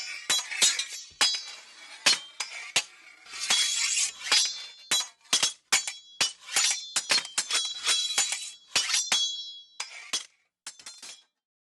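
Sword blades clashing, metal on metal: a fast, irregular run of many sharp strikes, each with a short bright ring. The clashes stop a little before the end.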